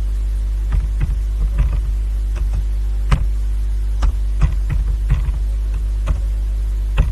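Computer keyboard keys tapped at an irregular pace, about a dozen sharp clicks while a few words are typed. Under them is a steady low electrical hum.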